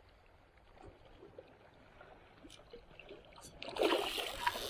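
A hooked fish thrashing at the water's surface: a sudden burst of splashing about three-quarters of the way in, after a few faint small ticks.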